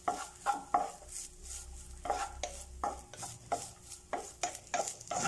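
Wooden spatula stirring grated coconut in a non-stick pan, scraping and tapping against the pan in quick strokes about three times a second.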